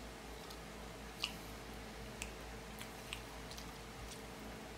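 A person chewing food quietly over a faint steady hum, with a few short, light clicks, the loudest about a second in.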